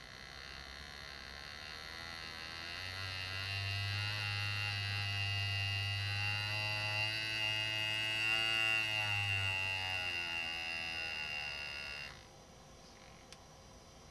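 Lindsay AirGraver pneumatic engraving handpiece buzzing as its graver cuts shading into metal. It builds up gradually over the first few seconds, holds with a slight waver in pitch, and cuts off suddenly near the end.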